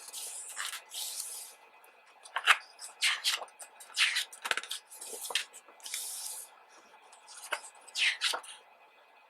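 Pages of a large photo book being turned by hand: paper swishing and rustling, with several sharp snaps as the pages flip over.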